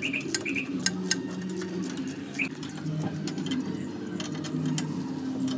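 Scattered metal clicks and clinks of a spanner working on a car's front brake caliper and steering knuckle, with birds calling in the background: low cooing and a few short chirps.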